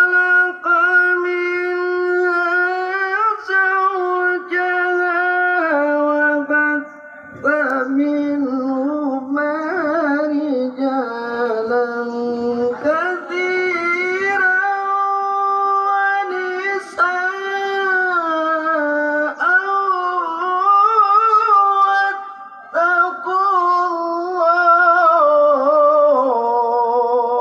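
A qori's melodic Quran recitation in a man's high, ornamented voice, amplified through a handheld microphone. Long held notes waver and turn in phrases, with short breaths between them.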